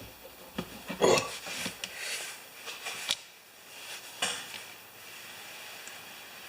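Metal hand tools and hose fittings being handled: a few sharp metal clinks and knocks, the loudest about a second in, with rubbing and scraping between them.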